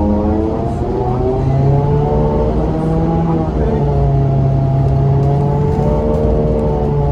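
2014 New Flyer XDE40 diesel-electric hybrid bus drivetrain running, a stack of tones that slowly sinks and rises in pitch as the bus changes speed, over a steady low drone. The uploader calls the sound horrible.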